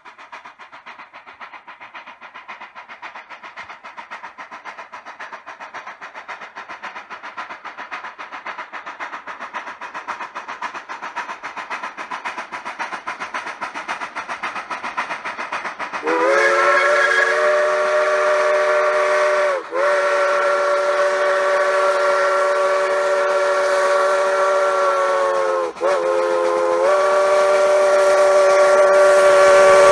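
Durango & Silverton K-28 2-8-2 steam locomotive No. 476 working hard as it approaches, its rapid exhaust beats growing louder. About halfway through its chime whistle comes in, sliding up into a chord of several tones, and is held long, breaking off briefly twice.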